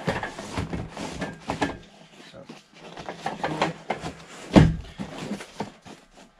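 A long cardboard box being handled and opened: scraping and rustling of cardboard with short knocks, and one loud thump about four and a half seconds in.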